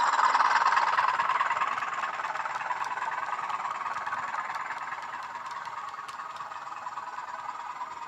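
Model Class 20 diesel locomotive's HM7000 sound decoder playing a Class 20 engine sound through its small onboard speaker, together with the running noise of the model on the track. It fades steadily as the train moves away.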